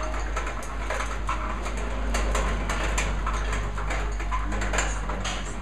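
Gasifier-fired coffee roaster running: a steady low rumble with a scatter of irregular clicks and ticks.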